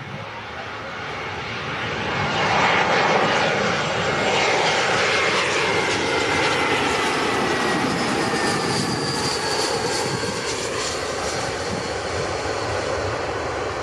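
Airbus A320's IAE V2500 jet engines on landing approach, flying past. A loud rushing engine noise builds over the first few seconds, then holds, with thin whines that slowly fall in pitch as the plane goes by.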